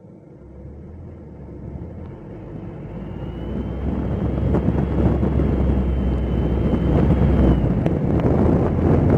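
Car driving on snowy streets: a low engine rumble under tyre and wind noise on the microphone, growing steadily louder over the first few seconds and then holding, with a faint high whine in the middle.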